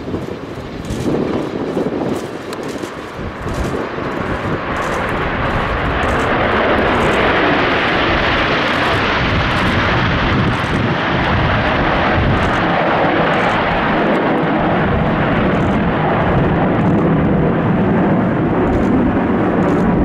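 Jet noise from a formation of CT-114 Tutor jets, each powered by a single J85 turbojet, passing overhead. It builds over the first five or six seconds, then holds steady and loud.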